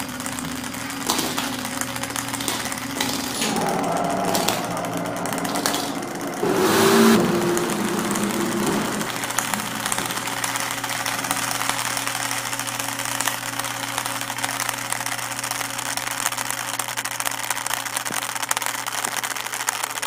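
A long chain of iPhone 5 handsets toppling like dominoes, a rapid, continuous clatter of phones tipping onto one another. It swells into a louder burst about seven seconds in.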